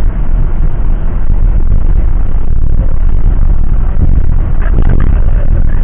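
Loud, steady low rumble of a vehicle in motion, heard from inside.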